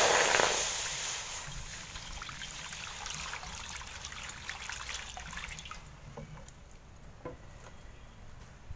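Water poured into a hot metal kadai. It hisses loudly as it hits the hot pan, and the hiss fades within about a second. Then it trickles and splashes steadily as the stream keeps pouring, stopping about six seconds in.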